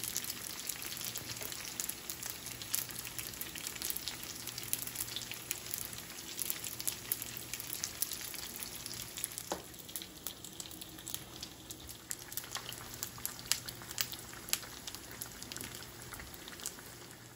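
Egg rolls deep-frying in hot grease: a steady sizzle dotted with frequent sharp crackles and pops. The hiss eases a little about ten seconds in while the popping goes on.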